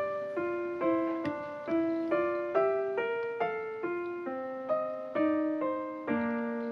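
Background piano music: a simple melody of evenly paced notes, a little over two a second, each struck and fading.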